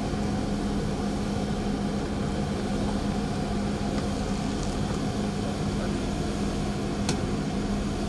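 Steady hum of idling vehicle engines with a constant low drone, broken by two faint clicks, one about four seconds in and a sharper one about seven seconds in.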